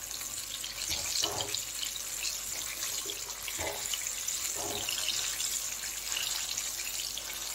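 Breaded chicken leg pieces sizzling steadily as they deep-fry in hot oil in a metal kadai, with a few soft knocks as a fork turns the pieces in the pan.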